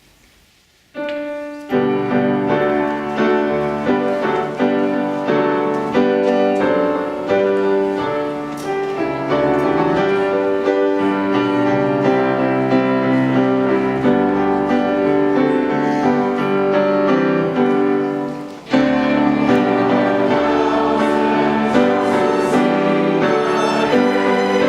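Instrumental classical music played on a keyboard: sustained chords and a melody begin about a second in, break off briefly about three-quarters of the way through, then carry on.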